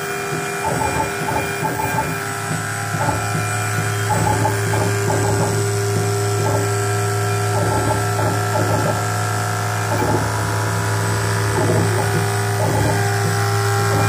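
CNC 6040 router running a milling job: the steady whine of its water-cooled spindle, with repeated short bursts of stepper-motor and gear noise as the axes move. A steady low hum comes in a couple of seconds in.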